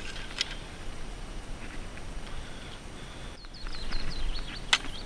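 Small birds chirping and singing, with a run of quick falling whistles about three and a half seconds in and a sharp click near the end, over a low rumble of wind on the microphone.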